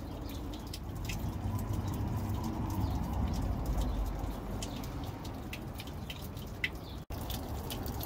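Water from a drained Truma Ultrastore boiler running out of its frost-valve drain pipe under a motorhome, falling to the ground as irregular drips over a faint low rumble. The sound cuts out for an instant about seven seconds in.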